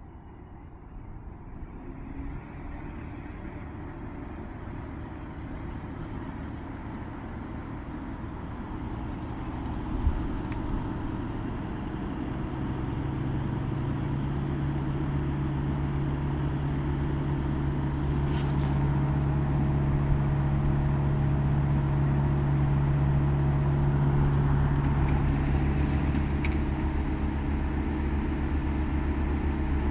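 Daikin multi inverter heat pump outdoor unit running and growing steadily louder as it comes out of its defrost cycle, with a short knock about ten seconds in and a steady low hum from soon after. Brief faint hisses break in twice later on.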